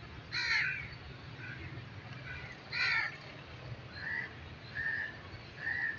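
Crows cawing: two harsh caws, one just after the start and one about three seconds in, followed by three shorter, clearer bird calls near the end, over a faint, steady low rumble.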